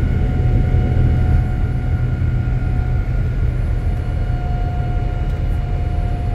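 Jet airliner engine and airflow noise heard inside the passenger cabin during the climb after takeoff: a loud, steady low roar with a thin steady whine over it, easing slightly after about a second and a half.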